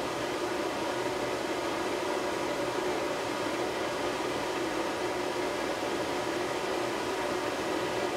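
Handheld hair dryer running steadily: a constant whir of its fan and blowing air.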